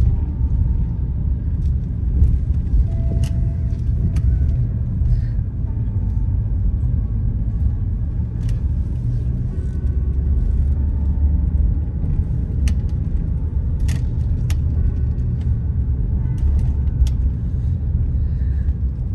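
Car driving slowly, heard from inside the cabin: a steady low rumble of engine and tyres, with a few light clicks scattered through it.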